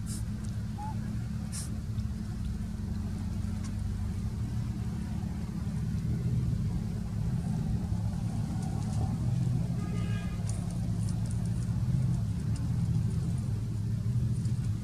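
A big truck's engine running steadily nearby, a low rumble that swells slightly midway. A brief high squeak about ten seconds in.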